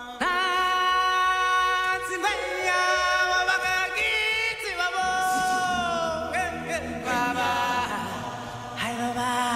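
Background music of chant-like singing: voices hold long notes with a slight waver, the first starting suddenly just after the beginning and new notes following every second or two.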